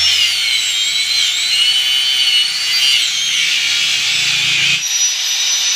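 A power tool running with a loud, high-pitched whine whose pitch drifts slowly, shifting suddenly about five seconds in.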